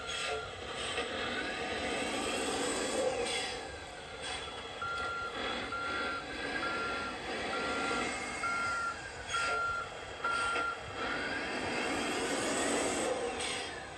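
An RC truck's electronic sound module plays a reversing beeper: a steady beep about once a second near the start and again from about five to eleven seconds in. Over it, a simulated engine sound rises and falls in pitch as it revs.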